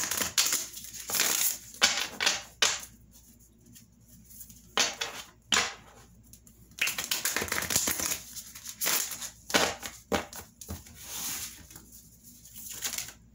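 A deck of tarot cards shuffled by hand: spells of rapid papery flicking and slapping, broken by short pauses, with the longest spell in the second half.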